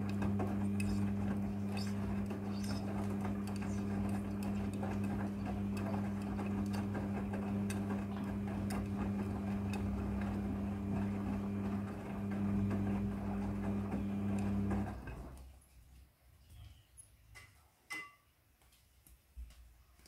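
Midea front-loading washing machine in its wash cycle: the drum motor runs with a steady hum while the laundry tumbles, with small knocks and clicks. About three quarters of the way through the motor stops and the drum comes to rest, leaving only faint scattered clicks.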